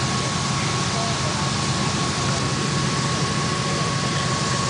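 Off-road rock-crawler buggy's engine running steadily at low revs, a constant low drone with no revving, with a thin steady high tone above it.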